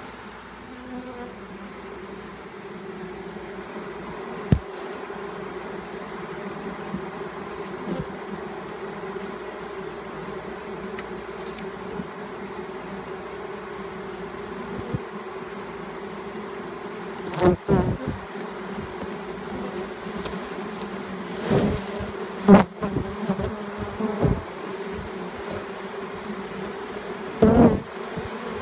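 A honeybee swarm buzzing steadily at close range, with many bees in flight around the cluster. A few sharp knocks break through, a cluster of them past the middle and the loudest about two-thirds of the way in.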